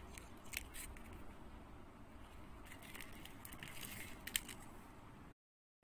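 Faint scattered clicks and ticks of small beads knocking against each other on beading thread as the beadwork is handled, over a quiet background hiss. The sound cuts out to dead silence shortly before the end.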